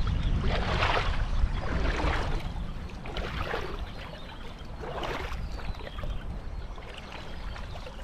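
Shallow river water splashing and sloshing in several separate splashes that thin out in the second half, over a steady low rumble.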